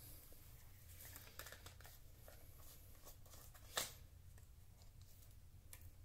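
Near silence with faint handling of a small jar of beard butter as its lid is worked open: a few soft rustles and ticks, and one sharp click almost four seconds in.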